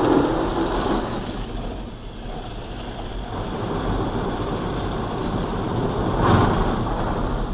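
Automatic car wash spraying water and soap onto the car's body and windows, heard from inside the closed cabin as a steady rushing wash, with a louder surge about six seconds in.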